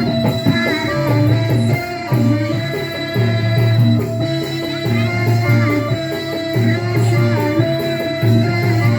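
Instrumental band music with a bass line pulsing on a steady beat and melodic instrument lines above it, without a clear voice; a thin, steady high whine runs underneath.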